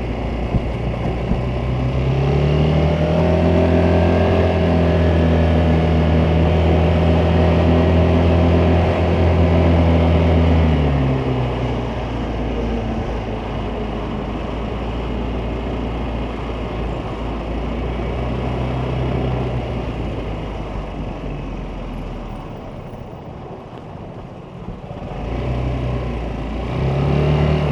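Vespa GTS 300 scooter's single-cylinder four-stroke engine pulling steadily under throttle for several seconds, its pitch rising a little and then falling away as the throttle closes. A stretch of coasting with a steady rushing road and wind noise follows, broken by short throttle openings, the last near the end.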